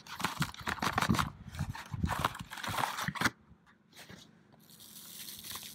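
Cardboard box and plastic packaging scraping and crinkling as the contents are slid out of the box, a dense run of crackles and scrapes that stops about three seconds in.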